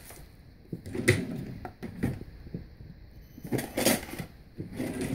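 Scattered knocks and rustles of hands rummaging for a pair of scissors, with plastic wrap crinkling now and then; the loudest clatters come about a second in, just before four seconds, and at the end.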